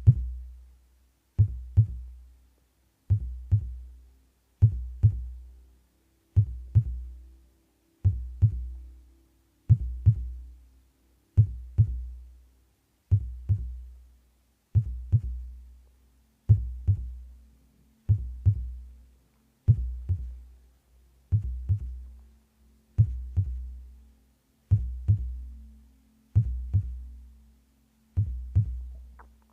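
Human heartbeat in a steady lub-dub rhythm: paired low thumps with a deep, quickly fading tail, a little over one beat every second and a half.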